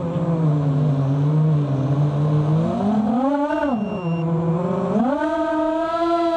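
FPV quadcopter's four brushless motors (Cobra 2206 2100kv) spinning 5x4.5 propellers, a steady buzzing whine that rises and falls in pitch with the throttle: up briefly about three seconds in, and up again from about five seconds until near the end.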